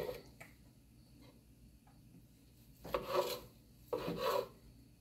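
Kitchen knife sawing slices off a cooked steak on a wooden cutting board: a few light taps, then two louder strokes about a second apart near the end.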